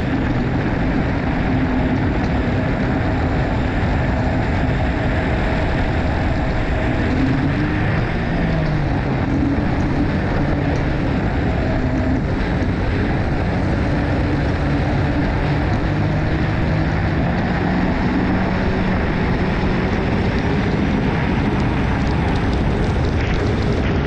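Rotax 1503 three-cylinder four-stroke engine of a personal watercraft running hard at speed, under loud water and wind rush. The engine note dips about a third of the way through, then climbs as the craft speeds up again. The owner reports that this engine won't rev up to its 8000 rpm.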